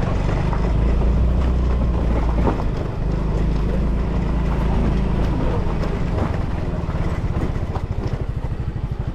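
Motor scooter engine running while riding over a rough lane, mixed with wind and road noise. Near the end it settles into an even, rapid pulsing.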